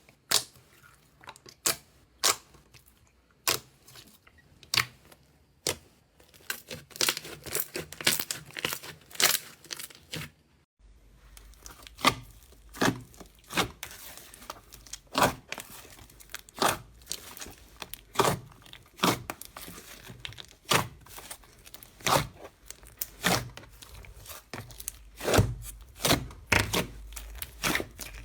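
Slime being pressed and squeezed by hand, giving repeated sharp sticky pops and crackles about one or two a second, with a denser crackling spell before an abrupt cut about a third of the way in; after the cut the same kind of popping goes on over a low hum.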